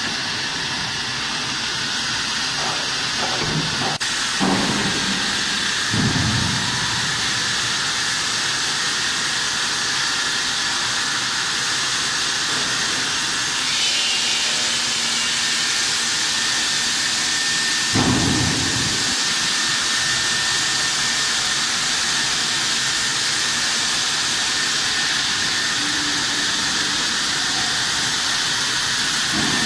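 Diamond blade of a CNC bridge saw cutting a stone slab under water cooling: a steady, loud rushing noise, with a few dull thumps about four, six and eighteen seconds in.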